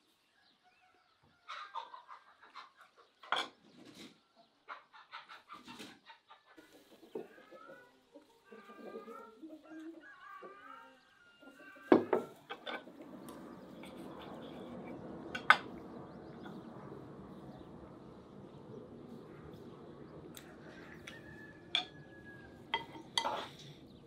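Cutlery and dishes clinking at a table, with chickens clucking in the background during the first half. From about halfway there is a steady rushing noise, and several sharp clinks come near the end.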